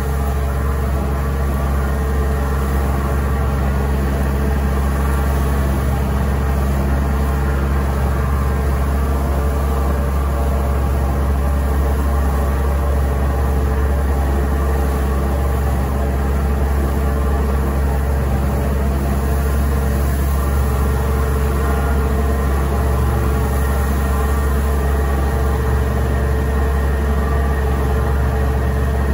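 Vertical mixer feed wagon running under power, its auger churning and tearing up a tight bale of second-cutting grass and alfalfa hay. It makes a loud, steady mechanical drone with a constant low hum that does not change.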